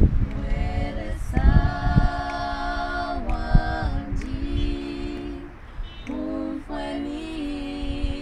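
Four women singing a Bemba-language hymn a cappella, a prayer for God to hear their cry, in slow phrases of long held notes with short breaks between them.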